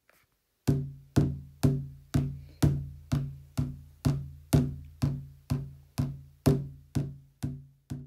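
Traditional drum played in a steady beat, about two strokes a second, each stroke ringing low and dying away before the next. The strokes grow softer over the last second or so.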